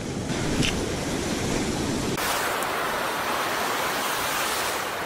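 Ocean surf washing up a sandy beach: a steady rushing noise that turns brighter and hissier about two seconds in.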